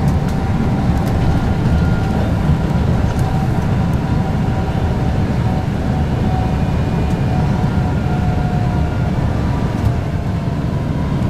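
Tour coach driving, heard from inside the cabin: a steady low rumble of engine and road noise with a faint high whine.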